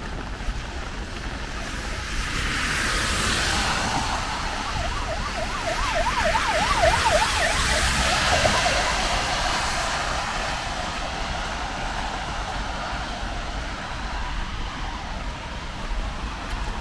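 Emergency vehicle siren in a fast yelp, its pitch swinging up and down about three times a second for about four seconds, over the swelling hiss of traffic passing on the wet road.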